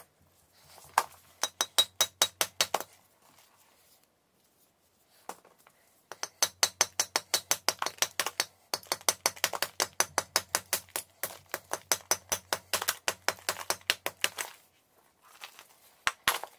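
Rapid, evenly spaced scraping strokes on a large block of chalk, about nine a second. A short run near the start, then a long run from about six seconds in, with a few separate sharp knocks near the end.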